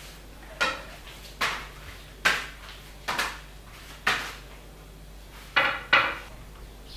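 A thin sheet of pastry dough flapped and slapped as it is stretched by hand: about seven sharp slaps roughly a second apart, the last two close together.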